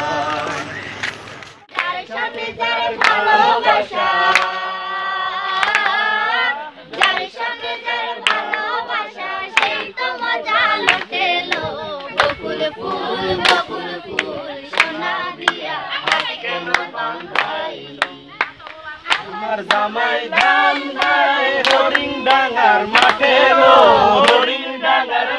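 A mixed group of young men and women singing a song together, clapping their hands in a steady rhythm to keep the beat.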